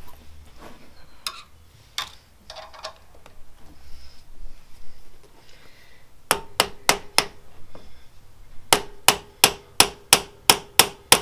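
A hammer tapping on metal, starting about six seconds in: a quick run of sharp, evenly spaced strikes, each with a short ring. Before that come a few light clicks and handling noises.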